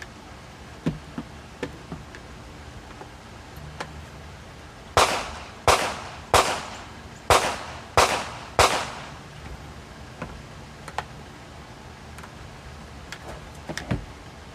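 Rifle fired six times in quick succession, about two-thirds of a second apart, each shot a sharp crack with a short ring-off. A few light clicks and knocks of handling come before and after the string.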